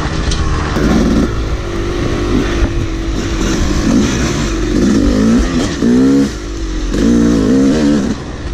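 Yamaha YZ250 two-stroke dirt bike engine revving up and falling back again and again as the throttle is opened and closed, heard from the rider, with wind rumble on the microphone.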